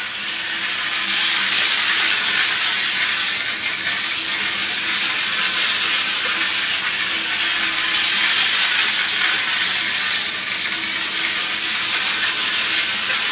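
Hornby Dublo three-rail Bo-Bo diesel model locomotive running steadily around the track: a continuous hissing whir and rattle of its motor and wheels on the metal rails, with a faint steady hum underneath. The motor sounds fine.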